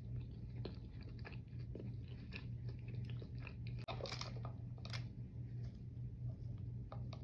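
Close-miked chewing and crunching of fast food, irregular crackly bites, over a steady low hum.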